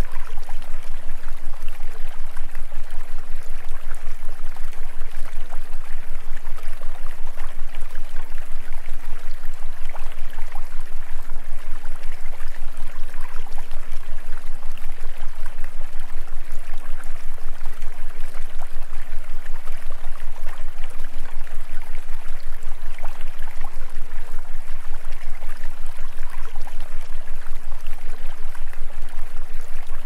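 Steady rushing noise like a flowing stream, with a steady deep hum beneath it; the loudness pulses rapidly and evenly throughout.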